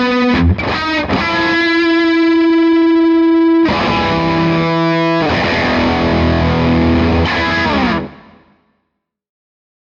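Electric guitar played through an Iannucci Audio King of Tone, a dual overdrive pedal derived from the Marshall Bluesbreaker, with a driven tone. A quick run of notes leads into a long sustained note, then a chordal phrase that stops about eight seconds in.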